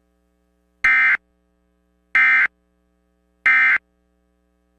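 EAS End of Message data burst: three short, identical bursts of warbling digital tone, about a third of a second each and evenly spaced. They mark the close of the emergency alert.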